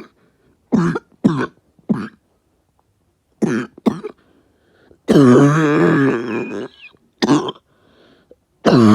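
A person coughing: short sharp coughs in small groups, broken by a longer, drawn-out voiced cough about five seconds in and another near the end.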